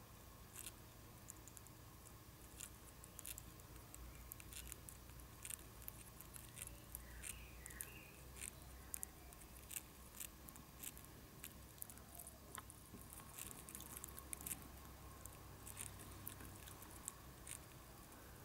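Faint, irregular dry clicks and scratches from a European hornet queen working on the papery cells of her small comb while feeding her larvae, over a low steady hum.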